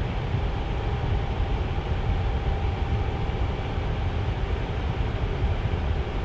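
Tower fan running steadily: an even rushing noise, heaviest in the low end, with a faint steady hum above it.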